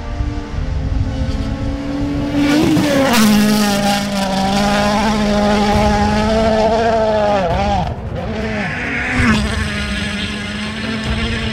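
Rally car engines running at high revs on a gravel stage. The pitch climbs sharply about two and a half seconds in and holds high, drops briefly near eight seconds as the driver lifts, then climbs again.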